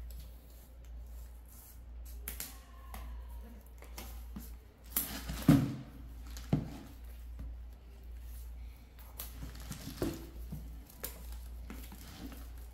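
Scissors snipping and slitting the plastic shrink wrap on a boxed merchandise set, with the film crinkling as it is peeled off and the box knocked and handled. The loudest is a thump about five and a half seconds in; a steady low hum lies underneath.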